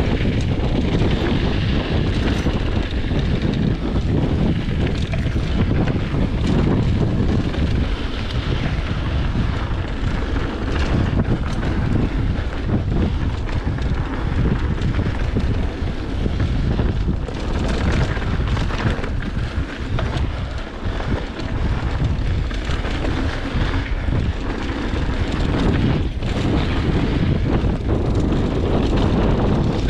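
Wind buffeting the microphone of a camera riding with a mountain bike on a dirt trail, a steady low rumble mixed with tyre noise on dirt. Scattered short clicks and rattles from the bike run through it.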